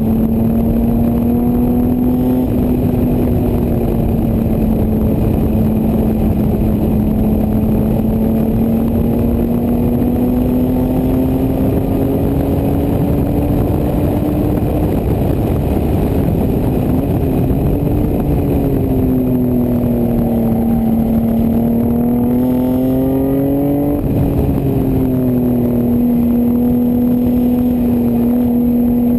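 1988 Toyota Supra's 7M-GE 3.0-litre straight-six running hard on track through a CX Racing aftermarket exhaust, heard from outside the driver's door with wind rush. Its pitch climbs slowly through the first half, dips and climbs again, then drops sharply about 24 seconds in before settling.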